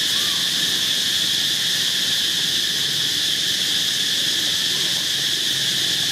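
Steady, high-pitched drone of an insect chorus, unbroken and even.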